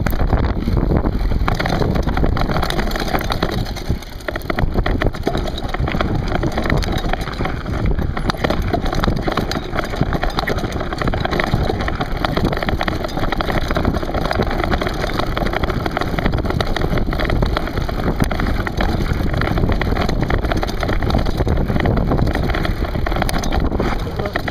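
Continuous rumble and rattle of a camera riding on a mountain bike over a rough, stony trail, with tyres crunching on gravel and wind buffeting the microphone.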